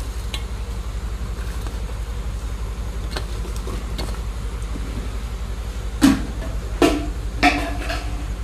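A steady low hum with a fast, even flutter. A few short knocks and clatters come between about six and seven and a half seconds in.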